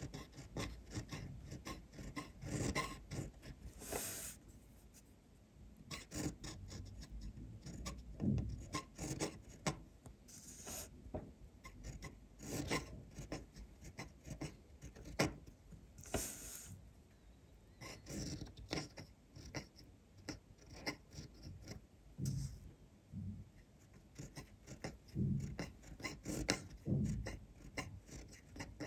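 Graf von Faber-Castell Classic fountain pen nib scratching across textured paper, in short, irregular strokes with brief pauses between them as cursive letters are written.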